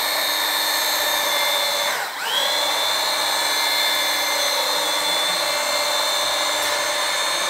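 Electric grinder driving a paddle mixer through tile adhesive in a bucket, running steadily to work out the lumps. Its motor whine dips for a moment about two seconds in and climbs back to speed.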